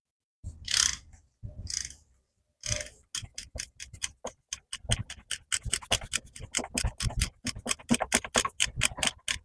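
Socket ratchet clicking rapidly and evenly, about six clicks a second, as the transmission drain plug is loosened. It starts after a few short handling noises.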